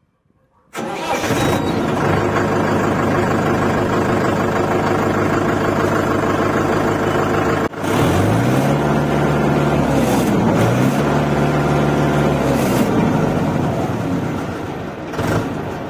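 Mahindra Yuvo Tech+ 575 DI tractor's four-cylinder diesel engine starting about a second in, then running steadily. About eight seconds in it is revved twice, the pitch rising and settling back each time.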